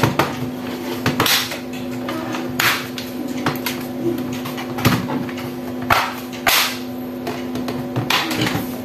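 Irregular sharp clicks and knocks from handling a laptop, about a dozen spread unevenly, over a steady low hum.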